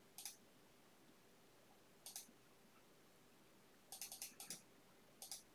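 Faint clicking from someone working a computer's mouse and keyboard. There is a single click, another about two seconds in, a quick run of about five around four seconds in, and two more near the end.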